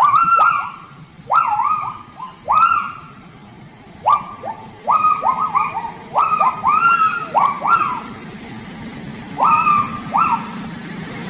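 Repeated loud animal calls, each a quick upward yelp that arches back down, coming in overlapping clusters of two to four, over a faint high pulsing trill.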